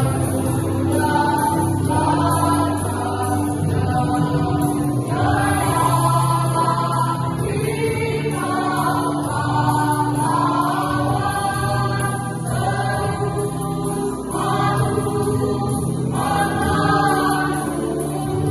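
A choir singing in parts, phrases sustained and changing pitch every second or two over steady low notes.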